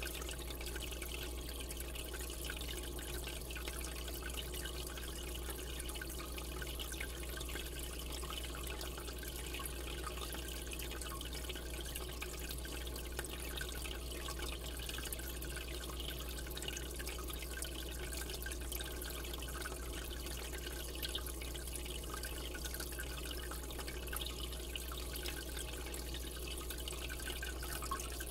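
Saltwater aquarium's water circulation: a steady trickling and bubbling over a low steady hum.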